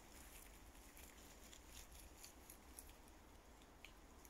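Near silence with faint, irregular light ticks and taps.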